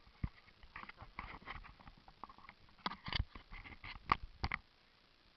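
A quick irregular series of sharp knocks and clicks, the loudest about three and four seconds in, stopping shortly before the end.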